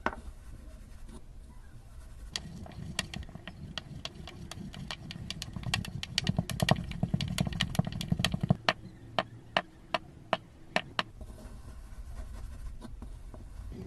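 Slime being squeezed and stretched by hand, giving a run of sharp wet clicks and pops over a low squelching rumble. The popping is densest and loudest in the middle, then thins out toward the end.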